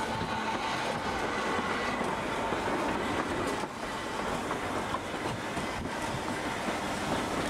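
Snaefell Mountain Railway electric tramcar running along the track toward the listener, giving a steady rolling rail noise.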